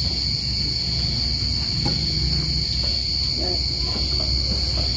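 Crickets trilling in a steady, high-pitched chorus, over a low steady hum, with faint voices and a light click of tableware.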